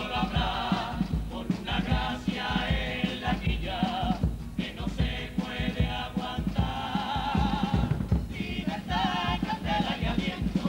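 Carnival comparsa chorus singing in harmony, voices wavering with vibrato in phrases broken by short pauses, over a steady instrumental beat.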